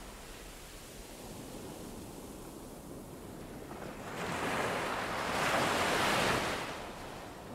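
Even rushing noise with no clear voices, swelling about four seconds in and easing near the end, like air moving over the camera microphone.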